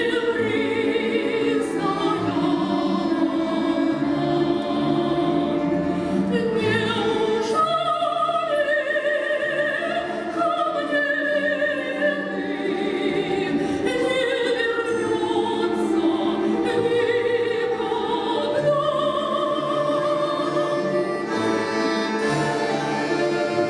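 Female soloist singing a Russian folk song in a full operatic style with wide vibrato, accompanied by an orchestra of Russian folk instruments. Near the end the voice drops out and the orchestra carries on alone.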